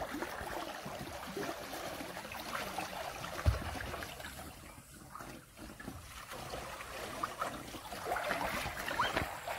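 Pool water sloshing and lapping as a person wades waist-deep through an above-ground frame pool and scrubs its wall with a mop, with a dull thump about three and a half seconds in.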